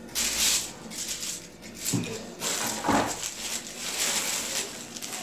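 Clear plastic freezer bag crinkling and rustling as it is handled and opened, with a couple of short knocks about two and three seconds in.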